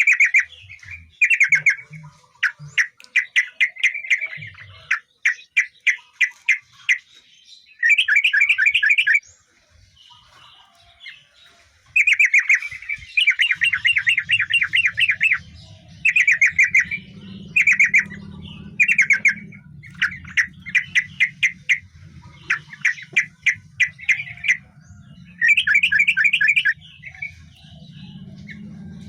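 Yellow-vented bulbul (trucukan) singing: repeated bursts of quick, bubbly chattering notes, about a second each, with short pauses between and one longer pause about a third of the way in. A faint low hum runs under the song from about halfway in.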